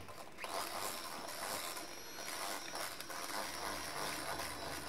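Electric hand mixer starting up about half a second in and running steadily, its beaters whisking sifted cocoa into cake batter in a stainless steel bowl, with a thin high motor whine.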